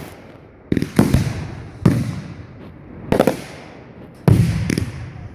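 Fireworks going off: about five sharp bangs in quick succession, each trailing off in a low rumble.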